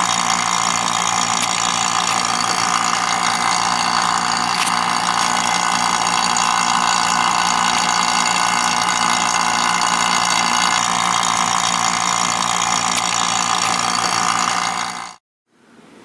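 Vacuum pump running steadily, pulling a vacuum on a chamber to degas poured epoxy resin, with a constant hum; it cuts off suddenly near the end.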